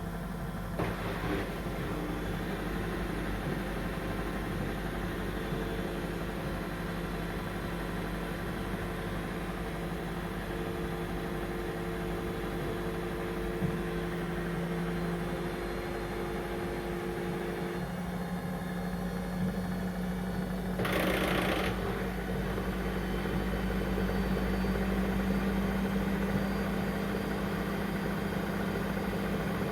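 Brandt washing machine's drum motor running steadily in a spin, a continuous hum that steps up a little in pitch just past halfway. A short hiss-like burst of noise comes about two thirds of the way through.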